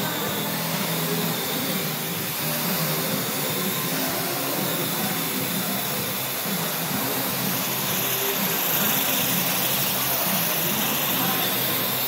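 Parrot AR.Drone quadcopters hovering close by: the steady buzzing whine of their four electric-motor propellers, the pitch wavering up and down as the motors speed up and slow down to hold and steer the drones.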